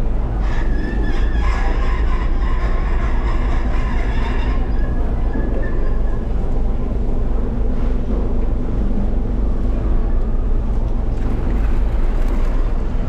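Fishing boat's engine running with a steady low rumble. For the first few seconds a high, steady tone sounds over it, then fades out.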